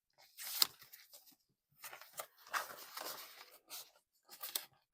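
Paper rustling and crinkling as cash bills and cash envelopes are handled, in several short irregular bursts with a sharp crackle about half a second in.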